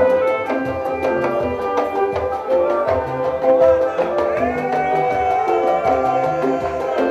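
Adungu, the Ugandan arched harp, playing music: a busy run of short plucked notes over a lower bass line.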